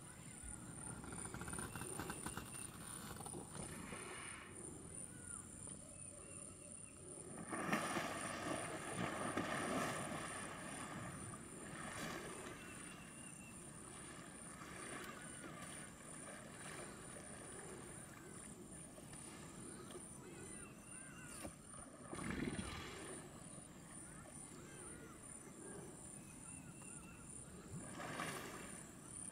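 Faint waterside ambience at dusk: a steady high trill, with small bird chirps now and then. A louder rush of noise comes about eight seconds in and lasts a few seconds, and a shorter one comes near the end.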